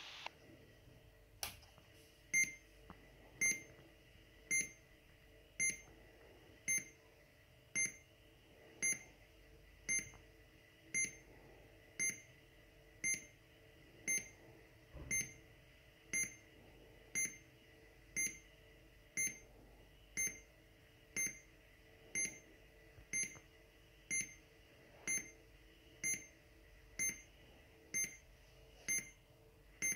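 Electronic beeper of a homemade airsoft 'bomb' prop, armed and counting down: after a single click, short high beeps sound about once a second, timing the run-up to the mock detonation.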